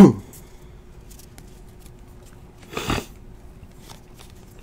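A man coughing: the end of a loud cough right at the start and a second, softer cough about three seconds in, which he puts down to allergies. In between, faint clicks of trading cards being handled and shuffled.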